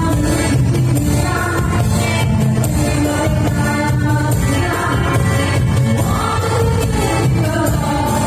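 Live-band disco dance music played loud through a sound system: a singer over a strong, steady bass beat, without a break.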